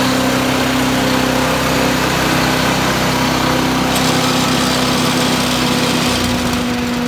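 Harbor Freight Predator 212cc single-cylinder four-stroke engine running steadily on a chipper shredder, with one brief click about four seconds in.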